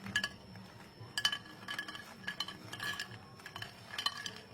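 A utensil clinking against kitchenware, about a dozen light, irregular clinks, each with a brief ring, as the fried macaroni is stirred or handled.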